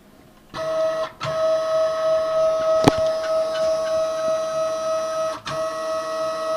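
Y-axis drive of a Kami FKM 350 PL CNC machine running with a steady high whine that starts about half a second in and cuts out briefly twice, with one sharp click near the middle. It is the strange Y-axis noise that adding more oil has not cured.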